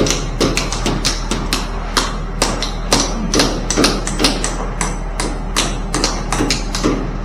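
Hand hammering: quick, somewhat irregular strikes, about three to four a second, over a steady low hum.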